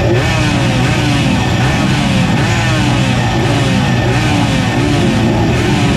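Yamaha TZ125 125 cc two-stroke single racing engine running hard, its pitch rising and dropping again and again as it revs through the gears, with loud wind rush over it.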